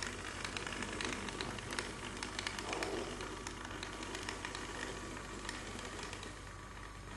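Hornby OO gauge Class 67 model diesel locomotive running slowly in reverse, its small electric motor and wheels on the track giving a steady crackling hiss of fine clicks that eases off near the end.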